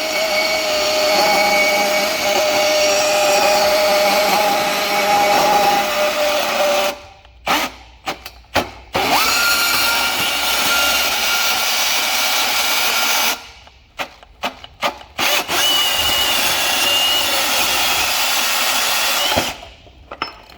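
Milwaukee M18 FBS85 cordless brushless band saw running under its variable-speed trigger. It gives three long runs with a steady motor whine, each higher in pitch than the last, broken by a few short trigger blips, and stops near the end.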